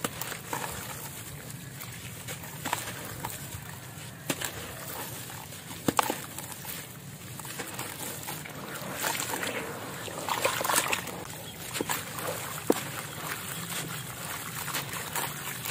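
Soft, wet concrete chunks crushed and crumbled by hand in a plastic basin of water: gritty crunching, with crumbs and grit sloshing and splashing into the water. There are a few sharp clicks, and a denser burst of crumbling past the middle.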